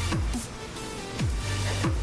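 Background electronic dance music: a deep kick drum that drops in pitch, struck a few times, over a low bass tone.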